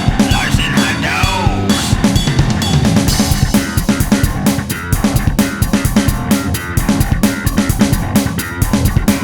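Rock band music with a driving drum beat, bass drum and snare hits, and electric guitar.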